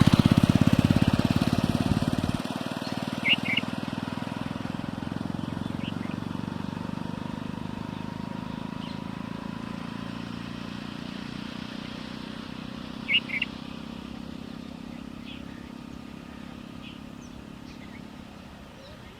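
A motor vehicle's engine runs with a steady low hum, loudest at the start and fading away as it moves off. A bird gives a short double chirp three times: about three seconds in, around thirteen seconds, and at the very end.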